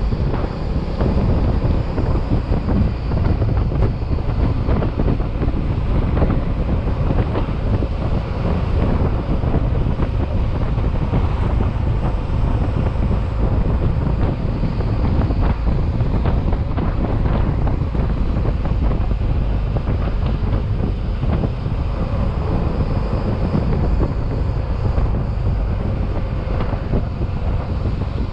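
Wind rushing over the microphone of a Yamaha XMAX maxi-scooter at riding speed: a steady, loud low rumble with the scooter's engine and road noise beneath it.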